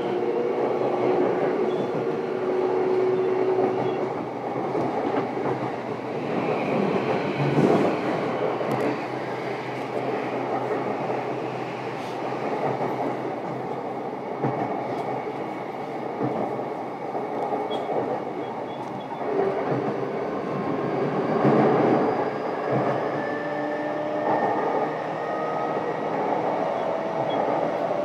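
JR East E233 series electric train running, heard from inside a motor car: wheels on the rails and the hum and whine of the traction motors. In the second half the motor whine climbs steadily in pitch as the train picks up speed, and a few knocks come through from the track.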